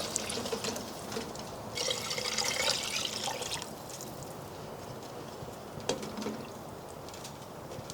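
Liquid being poured for about two seconds, a little way in, then a faint steady hiss with a light knock near the end.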